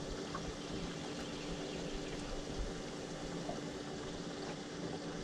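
Faint, steady water sound, a soft bubbling or trickling, under a low steady hum.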